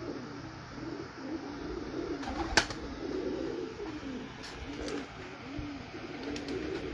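Domestic pigeons cooing over and over in low, rolling calls, with one sharp click about two and a half seconds in.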